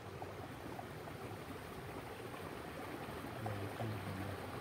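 Steady outdoor background noise with no clear single source, and a faint low hum a little after three seconds in.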